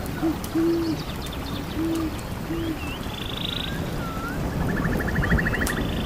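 Owl hooting four short, low hoots in the first three seconds over a steady hiss of forest background. Small birds call higher up with curved chirps and two fast trills later on.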